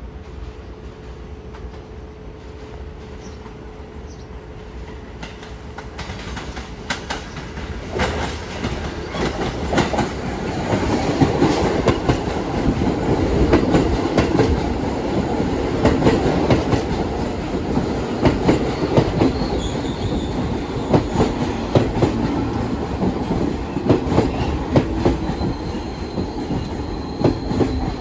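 Train running past on subway tracks, getting louder from a few seconds in, its wheels clacking rapidly over the rail joints. A faint high wheel squeal comes in near the end.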